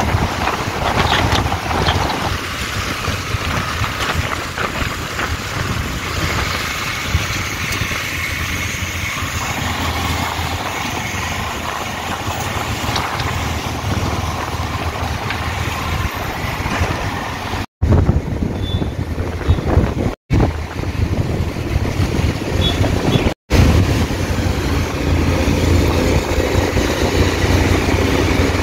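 Wind blowing over the microphone of a moving two-wheeler, mixed with its engine running and tyres on a wet road. The sound cuts out briefly three times about two-thirds of the way through.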